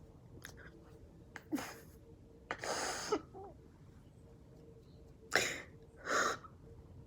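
A person's breathing: four short, sharp breaths or sniffs, the second one longer and a little shaky.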